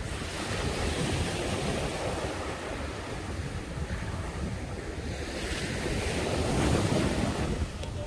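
Small sea waves breaking and washing up a sandy beach, the wash building to its loudest a little before the end. Wind buffets the microphone with a low rumble underneath.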